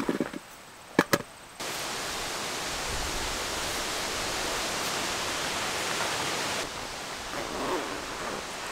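A short cloth rustle and two sharp clicks, then a steady rushing hiss that starts abruptly and drops in level about three-quarters of the way through, with light rustling of a canvas pouch being handled near the end.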